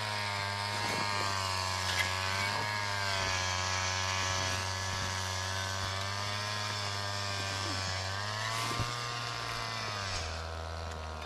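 An engine running steadily, its pitch wavering slowly up and down and settling lower near the end.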